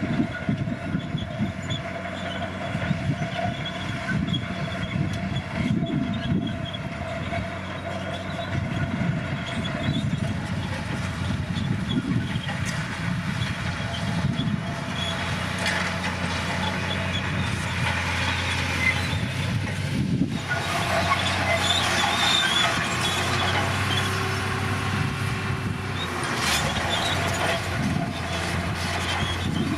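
Komatsu bulldozer's diesel engine running steadily while the machine works, its note shifting about two-thirds of the way in.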